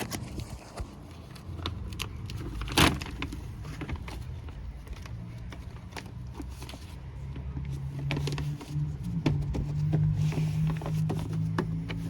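Clicks and knocks of car door parts being handled and fitted, with one sharp click about three seconds in. A low steady hum joins from about five seconds in.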